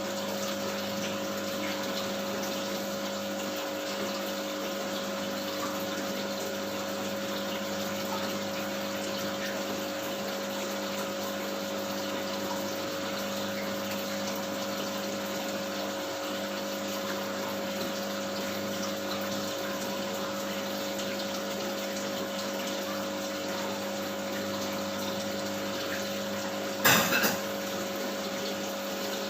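Aquarium pump humming steadily, with water running and splashing. A single brief knock about 27 seconds in.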